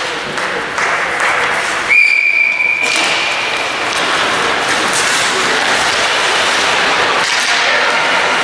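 Ice hockey game noise in a rink: steady crowd and play noise. About two seconds in, one steady whistle blast lasting just under a second.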